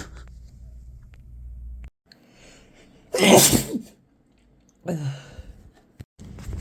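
A person's loud sneeze about three seconds in, followed a second and a half later by a shorter, quieter one.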